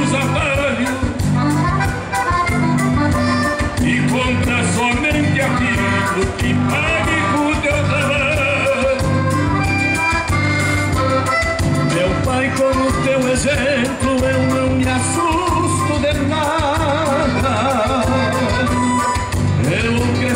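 Live gaúcho folk music from a band on stage, a man singing into a microphone over sustained bass notes and a steady beat.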